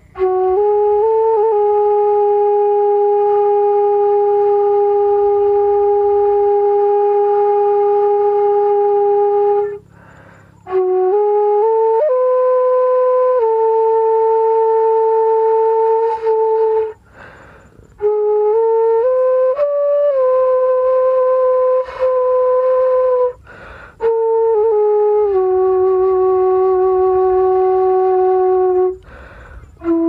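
Bansuri, a bamboo transverse flute, played solo in slow long-held notes: the first note is held for about nine seconds, then phrases step up and down with quick grace-note ornaments, separated by short pauses.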